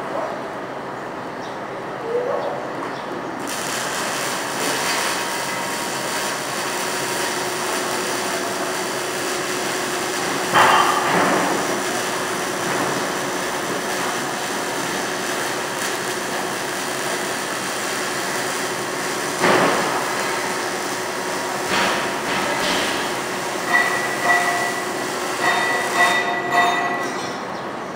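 Stick (SMAW) arc welding with a 6011 electrode: the arc strikes about three seconds in and runs as a steady hiss and crackle, broken by a few sharp knocks and, near the end, short ringing metallic tones.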